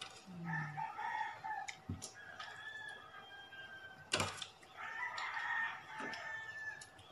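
Roosters crowing in the background, with long drawn-out crows coming one after another. A single sharp knock about four seconds in.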